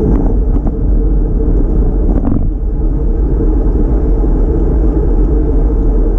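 Steady wind rumble on the microphone of a camera mounted on a moving road bicycle, mixed with tyre and road noise. A few light clicks come near the start, and a short rattle comes about two seconds in.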